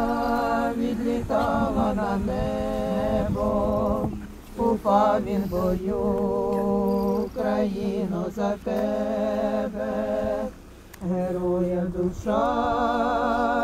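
Slow mournful singing in long held notes with a wavering vibrato, phrase after phrase with short breaths between, over a steady low note beneath.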